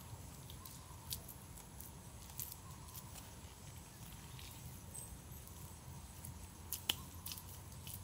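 Wet clay-and-grass daub being pressed and worked by hand onto a stick chimney frame: faint, scattered sticky squishes and small clicks, with one sharper click about seven seconds in.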